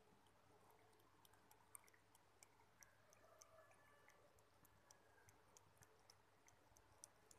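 A cat lapping milk from a bowl: faint, quick wet clicks, about four a second.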